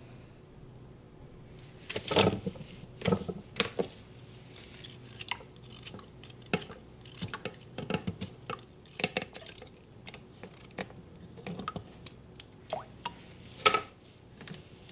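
Raw carrots being cut into chunks with a knife, the pieces dropping into a pot: an irregular run of crisp snaps and knocks, the loudest about two seconds in and near the end.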